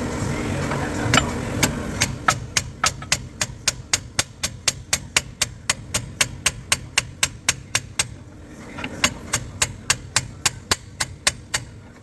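Rapid, even hammer blows, about four a second, knocking the old pin and bushes out of a truck leaf spring eye. They pause for about a second partway through, then resume.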